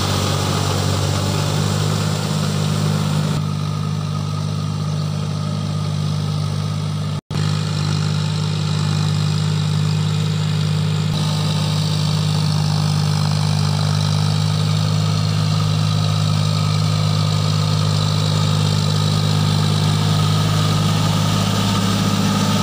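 John Deere 5050D tractor's three-cylinder diesel engine running steadily under load while pulling a rotary tiller through flooded mud. The sound cuts out for an instant about seven seconds in.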